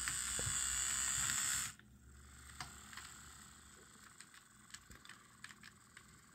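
Model Pennsylvania E8 locomotive's small DC motor and gears running on test track: a loud hissing whir that cuts off abruptly after about a second and a half, then faint irregular clicking and ticking.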